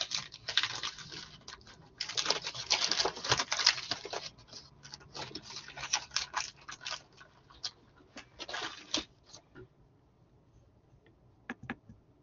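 Rustling and clattering of things being handled close to the microphone, in irregular bursts that die away about ten seconds in. A couple of sharp clicks follow near the end.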